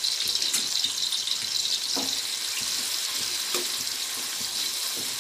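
Sliced onions sizzling steadily as they fry in hot oil and ghee in a large metal pot, with a couple of light ticks of a metal ladle stirring them.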